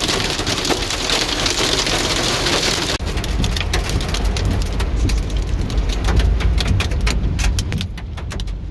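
Heavy rain drumming on a car's windshield and roof, heard from inside the moving car: a dense hiss of many separate drop hits. About three seconds in, the hiss thins and a low rumble from the car comes up underneath.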